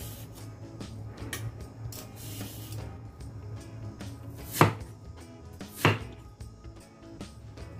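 Vegetable peeler scraping the skin off a mountain yam, then a Chinese cleaver chopping the yam on a chopping block: two loud chops a little over a second apart near the middle.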